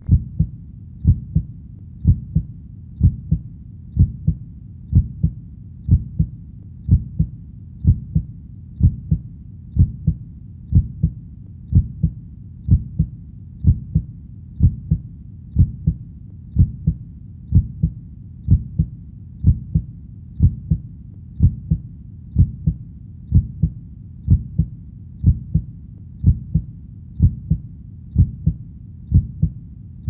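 Human heartbeat beating steadily, a low double thump (lub-dub) about once a second.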